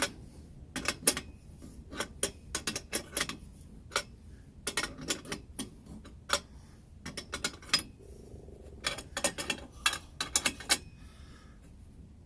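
Irregular light metallic clicks and taps as parts of a Coleman 502 camp stove are handled and fitted together during reassembly, in small clusters with short pauses between.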